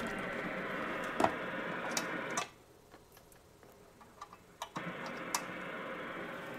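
Shortwave receiver static hissing from the Kenwood TS-440S speaker in AM mode. The static cuts out about two and a half seconds in and comes back about two seconds later, as the antenna is switched over to the active mini whip, with several sharp clicks along the way.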